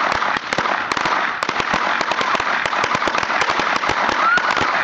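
A 1000-count string of firecrackers going off: rapid, irregular bangs packed closely together in a continuous crackle with no pause.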